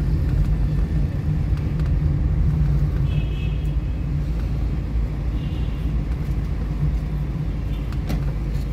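Steady low rumble of car traffic, with two faint, short high-pitched tones a couple of seconds apart.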